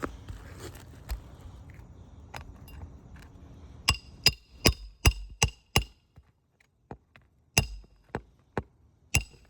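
Hammer blows on metal: a quick run of about six strikes, then four more spaced out near the end, several with a short metallic ring.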